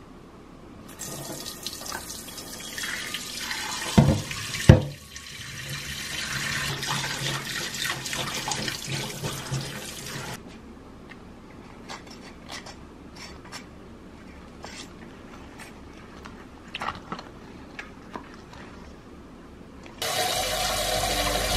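Kitchen tap running into a stainless steel sink while a pink plastic tray is rinsed and scrubbed under it, with two sharp knocks of the tray against the sink about four seconds in. The water stops about halfway through, leaving soft scattered clicks of handling. Near the end the tap runs again into a stainless steel pot.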